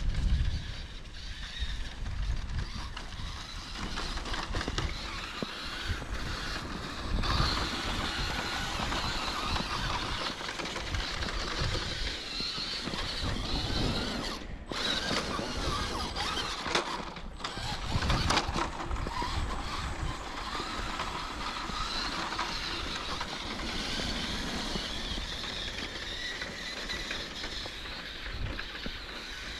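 Electric RC truck's motor and gearbox whining as it drives through snow, getting louder and softer by turns.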